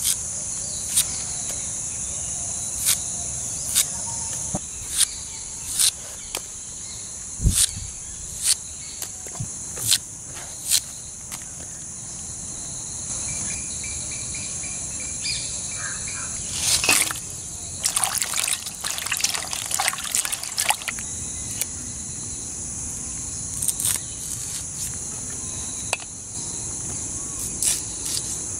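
Knife cutting through shallots and green chillies held in the hand, a crisp snap about once a second, then a quicker run of snaps about two-thirds through, over a steady high drone of insects.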